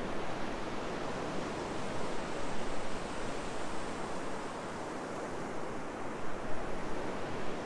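Ocean surf breaking and washing up a sandy beach, a steady rush with gentle swells in level.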